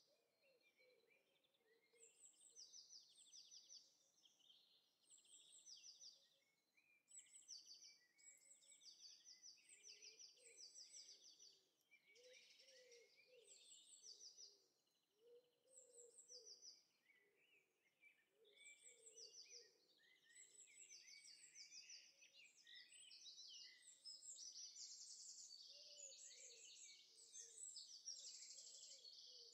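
Faint chorus of songbirds: many quick high chirps and trills overlapping, with softer, lower calls beneath, growing busier and louder near the end.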